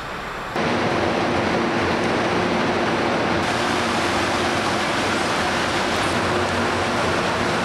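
A steady rushing of a moving train cuts off about half a second in. It is replaced by a louder, steady whir with a low hum from an Amtrak electric locomotive standing at a station platform.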